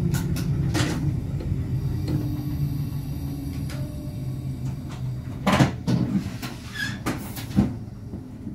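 Inside the cab of a BLS RBDe 566 train at a standstill: a steady low hum from the train's equipment that slowly fades, with a series of clunks and clicks from doors or covers being handled in the cab, the loudest about five and a half and seven and a half seconds in.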